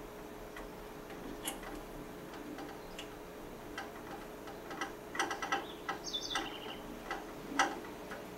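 Small screwdriver turning and seating a tiny mounting screw of a new micro switch on a gas water heater's water valve: faint, irregular metallic clicks and ticks, growing busier after about five seconds, with a brief high squeak falling in pitch about six seconds in.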